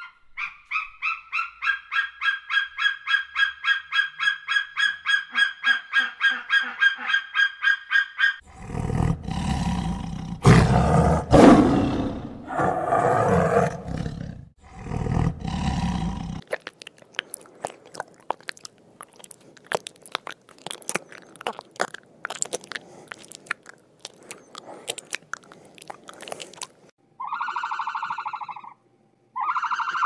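A fast pulsed animal call, about five pulses a second, for the first eight seconds. Then a white tiger roars and growls in several loud, deep bursts. Scattered clicks follow, and near the end there are two loud honking bursts.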